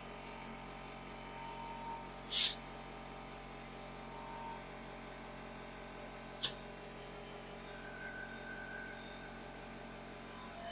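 Hand-tool work on a golf cart tire: a loud, short, noisy burst about two seconds in, a single sharp click a few seconds later, and two faint ticks near the end, over a low steady hum.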